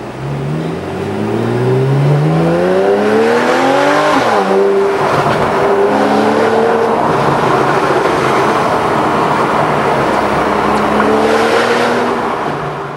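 Porsche 911 Carrera 4S (997) flat-six with a sports exhaust accelerating hard, its pitch climbing for about four seconds before the revs drop suddenly. It then runs on steadily, with two shorter rises in pitch.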